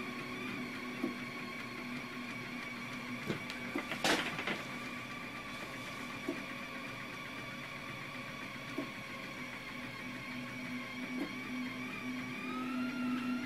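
Anycubic Kossel delta 3D printer running its print moves: a steady machine whine from its stepper motors, with scattered small clicks and one louder clack about four seconds in. Near the end the whine shifts in pitch as the motion changes.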